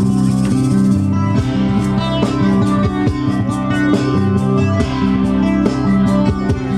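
Music: guitar-led song with drums playing between sung lines, steady and loud.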